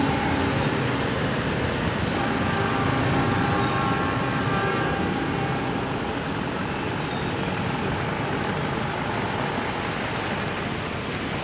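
Freight train rolling away along the rails, a steady rumble of wheels on track with a faint squealing tone that fades out about halfway through.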